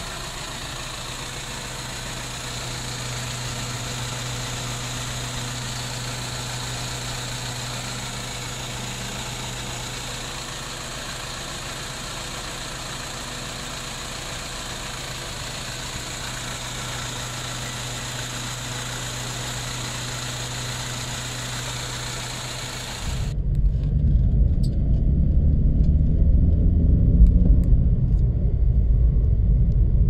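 BMW N46 four-cylinder petrol engine idling steadily, with the rough idle of a misfire logged on cylinder 1. About 23 seconds in it gives way to a much louder, deep sound of the same car driving under load at low revs, heard from inside the cabin.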